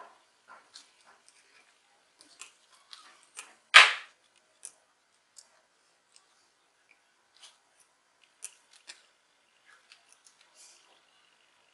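Small clicks and taps from handling a circuit board and hand tools on a workbench, with one louder knock about four seconds in and scattered light ticks after it.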